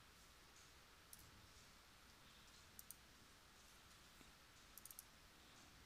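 Faint computer mouse clicks over near silence: a single click, a quick pair about halfway through, and a run of three or four quick clicks near the end.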